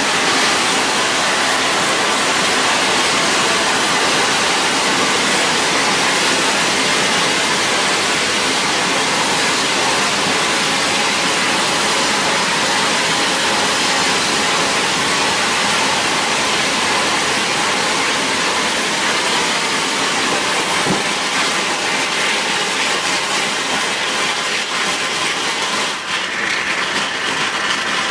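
GORE Mk.1 hybrid rocket engine firing on a static test stand: a loud, steady rush of exhaust noise. About 26 seconds in it thins and wavers as the burn tails off.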